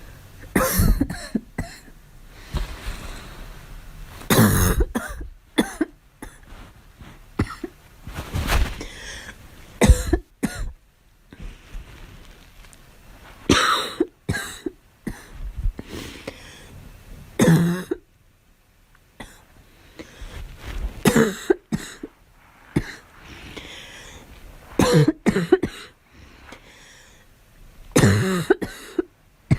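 A girl coughing in bouts every few seconds, some single coughs and some quick runs of several.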